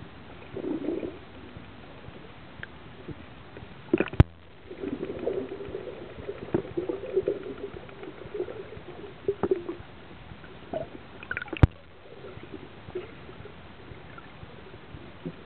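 Water gurgling and sloshing in irregular spurts over a steady hiss. Two sharp knocks come about four seconds in and about eleven and a half seconds in.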